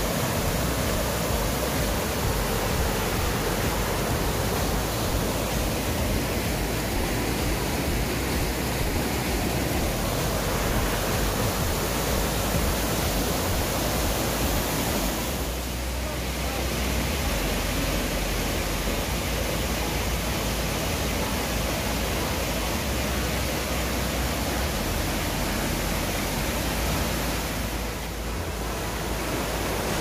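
Mountain stream rushing over rocks and small waterfalls, a steady, even water noise that dips briefly about halfway through and again near the end.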